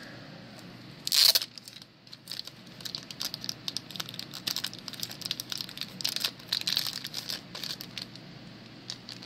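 Plastic packaging crinkling as trading cards are handled: a loud rustle about a second in, then a long run of crackling as sleeves and wrapping are worked.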